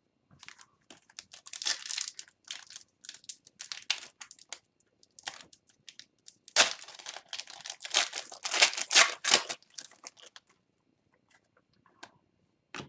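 A foil trading-card pack being torn open and its wrapper crinkled, in irregular crackling rustles that are loudest in the second half, then die away to a few faint taps.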